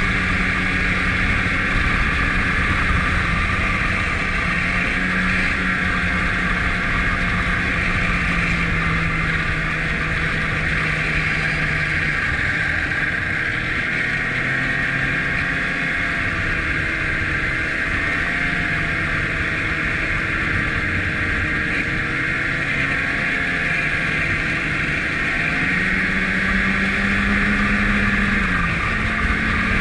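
Snowmobile engine running steadily while the sled travels along a trail. The engine note dips slightly about twelve seconds in and climbs again a few seconds before the end.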